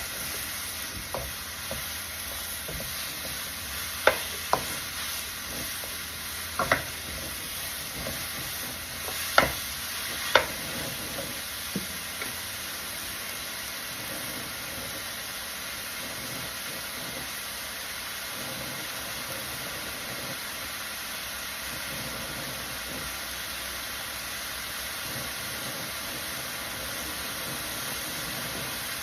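Sliced mushrooms sizzling steadily in hot oil in a large pan on a high flame, with about ten sharp knocks of a spoon or spatula against the pan during stirring in the first twelve seconds or so, then only the even sizzle.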